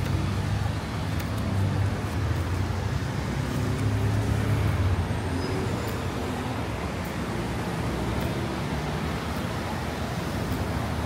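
City street traffic: motor vehicle engines running close by with a steady low rumble, swelling near the start and again about four to five seconds in.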